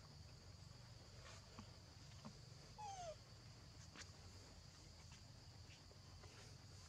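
Near silence: a faint steady high insect drone, with one short falling animal call about three seconds in and a few faint ticks.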